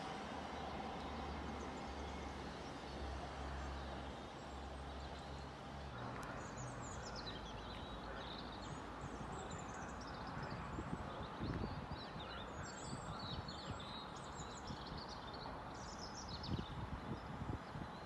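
Small birds chirping and singing over steady outdoor background noise, starting about six seconds in, after a low steady drone fades out. A few short low bumps come in the middle and near the end.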